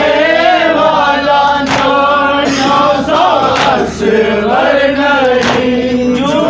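Male voices chanting an Urdu noha (Shia lament) into a microphone, with sharp hand slaps on the chest (matam) about every two seconds in time with the chant.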